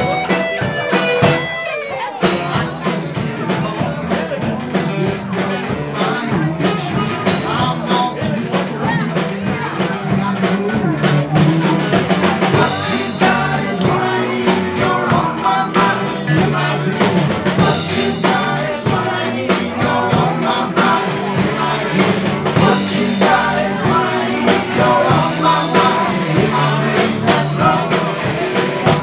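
Live blues-rock band playing: electric guitars and drum kit with keyboard, and a voice singing over it.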